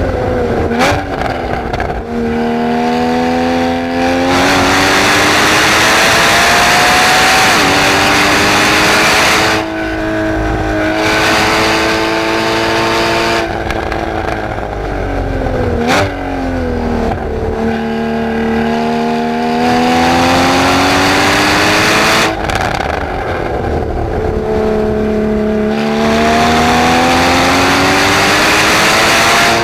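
2016 Porsche Cayman GTS's flat-six engine heard from inside the cabin, driven hard at high revs. Its pitch climbs for several seconds at a time and drops sharply at each gear change. Quick blips of revs come on downshifts near the start and again about halfway through.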